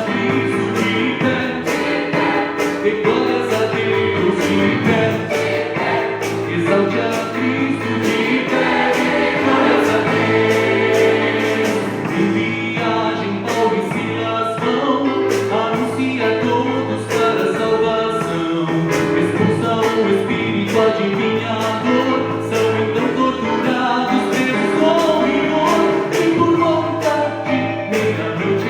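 Church choir singing a gospel cantata piece in Portuguese over keyboard accompaniment with a steady beat.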